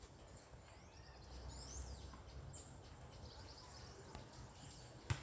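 Faint birdsong, a few short high chirps, over a low steady rumble of outdoor ambience, with a sharp knock near the end.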